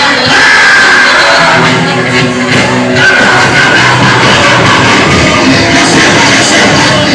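Loud church worship music, with congregation voices shouting and singing over it.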